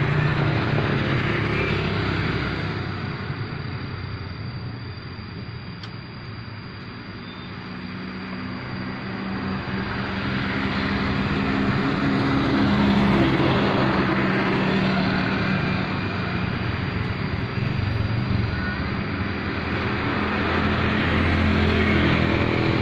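Road traffic passing on a village road: motor vehicles going by one after another, their engine hum and tyre noise swelling as each passes. There is a brief lull about six seconds in, and the loudest pass comes about halfway through.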